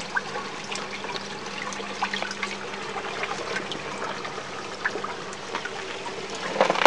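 Water trickling and splashing steadily in an aquaponics system's pipework and raft bed, with many small drips scattered through it.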